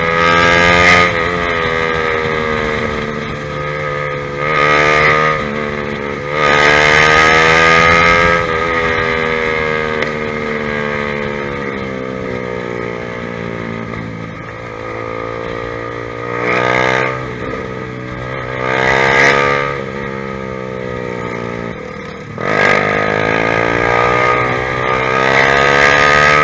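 Honda CBR150R motorcycle engine through a ProLiner TR1-R aftermarket exhaust while riding. Revs climb and drop sharply at each gear change, ease off in the middle with two short throttle blips, dip, then climb hard near the end.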